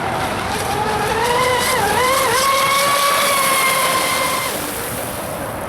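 Zelos twin-motor RC boat's electric motors whining as it runs at speed, with a hiss of spray. The pitch rises, dips briefly twice, holds high and then fades out about four and a half seconds in.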